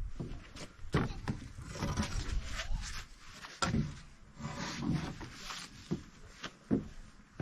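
Rough-sawn white oak boards being handled and set down, giving a series of irregular wooden knocks and thuds.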